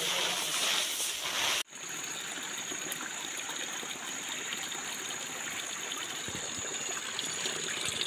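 Water running steadily out of a wooden trough and splashing onto wet ground, with a thin steady high tone over it. Before that, a loud hissing rush cuts off abruptly about a second and a half in.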